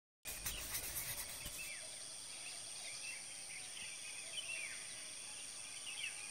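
Forest birds chirping in short, repeated falling calls over a steady high-pitched whine, outdoor morning ambience.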